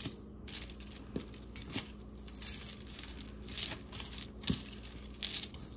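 Costume jewelry being handled: small metal and glass pieces clinking and rattling against each other, with light rustling and a few sharper clicks as pieces are picked up and set down.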